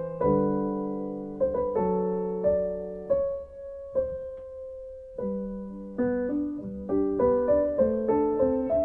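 Piano music playing chords and a melody. A few seconds in it thins to a single held note, then picks up again with quicker notes.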